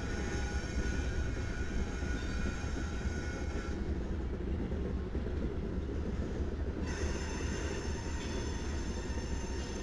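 A slow freight train led by diesel locomotives rolling by, making a steady low rumble of engines and wheels. A faint, thin wheel squeal is heard in the first few seconds and then fades.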